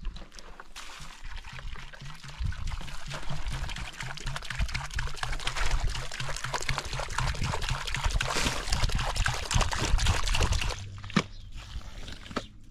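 A steady pouring rush, something being poured out continuously for about ten seconds, which stops abruptly near the end.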